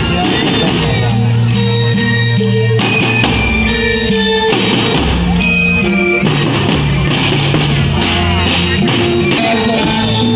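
Loud rock-style music with held bass and melody notes changing every second or so.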